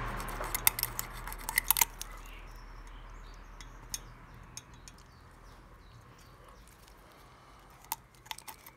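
Small metallic clicks and ticks of hands and tools working at the valve adjuster of a YX140 pitbike engine head while the valve clearance is checked. The clicks bunch in the first two seconds and again near the end, and a low hum fades away over the first few seconds.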